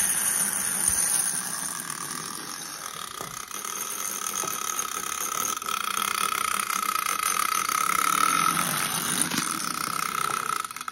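Clockwork wind-up motor of a tin toy robot pushing a cart, whirring steadily as the toy runs across a hardwood floor.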